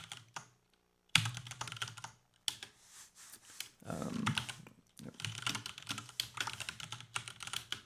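Computer keyboard being typed on: several quick runs of keystrokes separated by short pauses, the longest run near the end.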